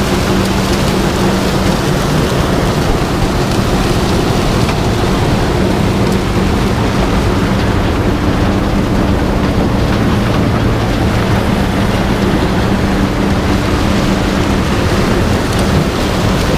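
Large farm harvest machine running steadily under load: a loud, even rumble with a constant low hum.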